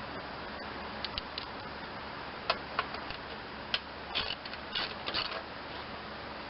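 Hand tools working on metal bolts and engine parts: irregular sharp clicks and clinks, a few single ones and then two short clustered runs near the end, like a wrench or ratchet turning out fasteners.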